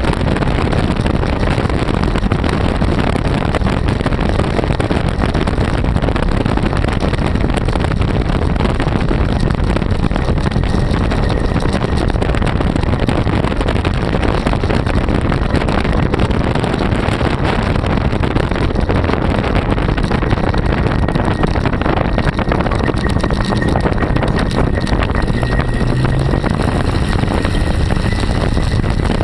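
Small-block Chevy 350 V8 of a hand-built trike running steadily at road speed, with wind buffeting the microphone.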